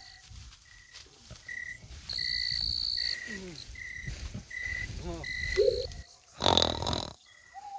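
Night-time ambience of a cricket chirping in short, evenly spaced pulses, about two a second, with a few other falling animal calls. A louder harsh burst comes about six and a half seconds in.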